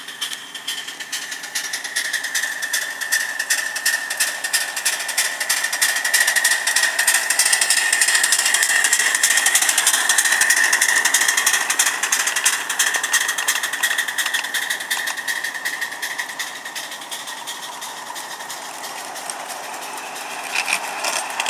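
Miniature live-steam locomotive passing close by: a rapid, rhythmic chuffing and rattle that builds to its loudest about halfway through, then fades. A second small steam locomotive comes close again near the end.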